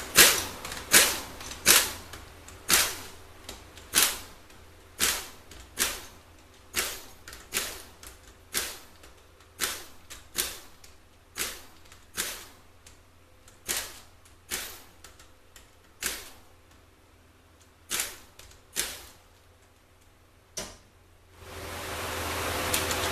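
Pneumatic air ratchet in short trigger bursts, about one a second, spinning out the valve body bolts of a 4L80E automatic transmission. The bursts stop about 21 seconds in, and a steady noise rises near the end.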